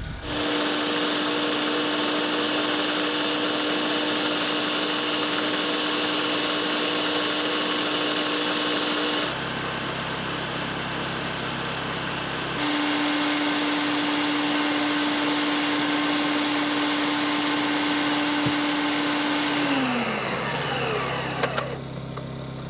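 Electric food processor running steadily with a constant motor whine over a whirring hiss. The whine drops out for about three seconds in the middle, leaving a lower hum, then comes back. Near the end it is switched off and the motor winds down, its pitch falling.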